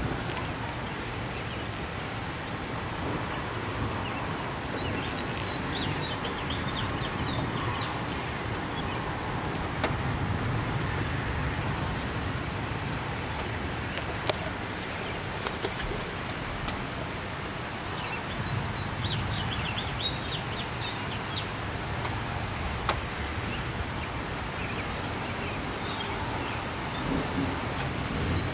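Steady rain falling during a thunderstorm, with occasional sharp ticks of drops. A bird chirps in two short spells, once early on and again past the middle.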